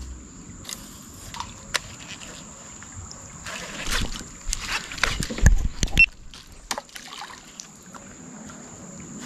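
A hooked piraputanga splashing at the surface beside a fishing kayak, mixed with knocks of rod and hand against the hull. It comes as a cluster of splashes and thumps from about three and a half to six seconds in, the loudest thump about five and a half seconds in. A steady high-pitched whine sits behind it.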